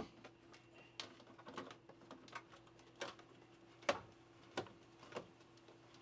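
Crank knob of a MaxxAir roof vent fan being turned to wind the lid open: a series of short clicks, faint at first and sharper in the second half, roughly one every two-thirds of a second, over a faint steady hum.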